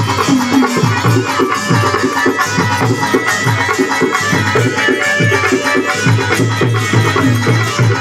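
Live Rajasthani folk devotional music: a hand drum beats a fast rhythm whose bass strokes slide down in pitch, over a held melody line.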